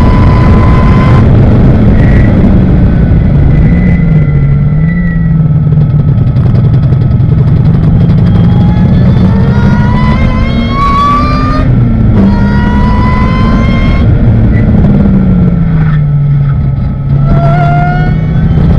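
Ariel Atom race car's engine heard on board under racing load, loud throughout. Its pitch climbs and falls with the gear changes, dropping noticeably about fifteen seconds in.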